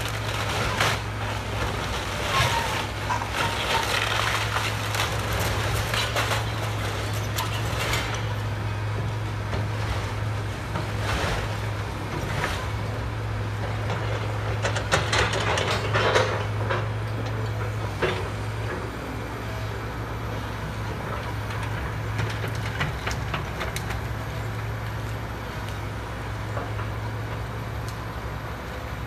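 Diesel engine of a tracked excavator running steadily while its bucket breaks up and drags the debris of a demolished wood-frame house, with bursts of cracking wood and crashing rubble. The crashing is densest in the first several seconds, comes again in short spells around the middle, and thins out in the last third.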